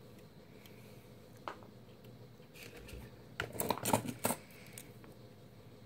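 Small clicks and rustles of fingers twisting fine jewelry wire and handling a wire-wrapped earring: a single click, then a quick cluster of clicks a little past the middle.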